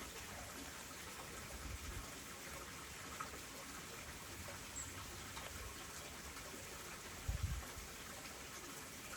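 Steady trickling of running water, with a brief low thump about seven seconds in.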